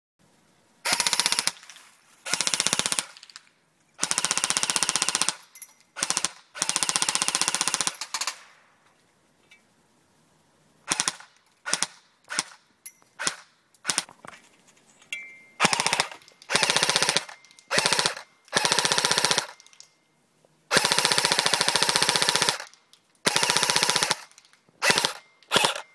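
Echo1 AK74U airsoft electric gun firing on full auto: about a dozen bursts, each from a fraction of a second to about a second and a half long. Between about 11 and 15 seconds in there is a run of very short bursts or single shots.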